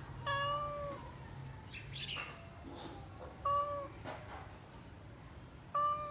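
Tabby cat meowing three times: a steady, level-pitched meow just after the start, then two shorter ones a few seconds apart.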